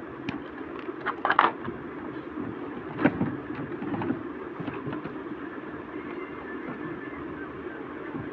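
Short clinks and knocks of tools and metal parts being handled while a washing machine motor is fitted. There is a cluster of them a second or so in, then single knocks at about three and four seconds, over a steady low background hum.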